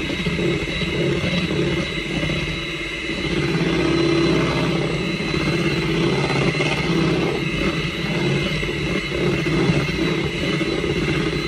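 Electric hand mixer running at a steady speed with an even motor whine, its beaters churning strawberry cheesecake batter in a bowl.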